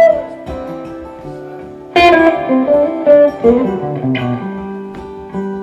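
Guitar playing an instrumental break in a live song: picked single-note melody lines, with a louder run of notes starting about two seconds in.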